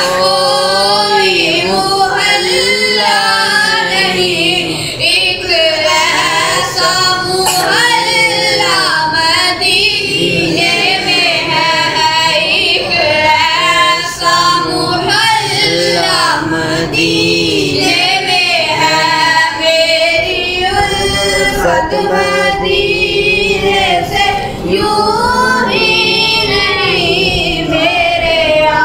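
A boy singing a naat, a devotional Urdu hymn, into a microphone, in long held notes that waver and glide.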